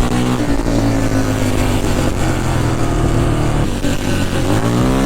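Quad (ATV) engine running steadily under throttle. Near the end it eases off, then revs back up with a rising pitch.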